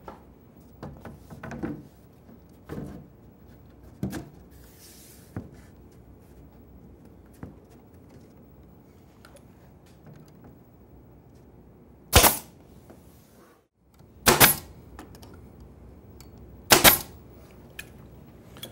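Clamps being set and tightened on a glued cabinet face frame: scattered light clicks and knocks, then three loud sharp bangs about two seconds apart.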